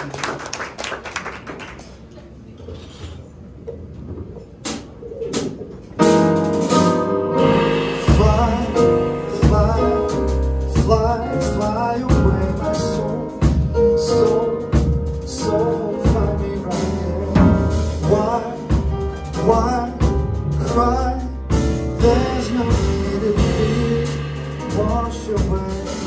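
Live jazz band of piano, bass and drums starting a ballad about six seconds in, after a short lull with a few faint clicks. Pitched notes carry the tune over a steady bass line and light drum strokes.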